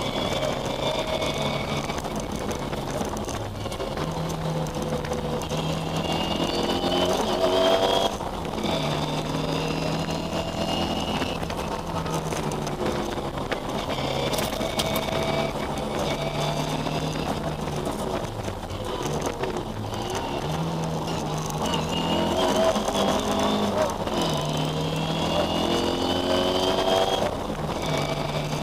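Historic Ford Escort rally car's engine heard from inside the cabin at full stage pace, revving hard. Its pitch climbs again and again and falls back sharply several times as the car is driven through the stage.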